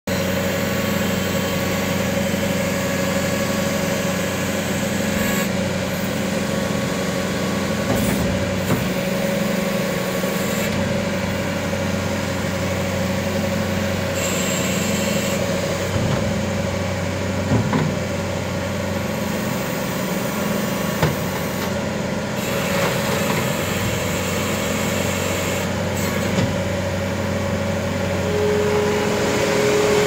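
2016 New Holland L220 skid steer's diesel engine running steadily, with a few light knocks. Near the end a higher steady whine comes in as the machine moves off.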